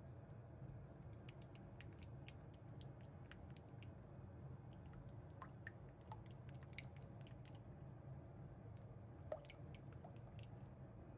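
Faint squishing and scraping of a silicone spatula stirring soft garlic butter in a glass bowl: many small wet clicks, with a few short squeaks of the spatula against the glass, over a steady low hum.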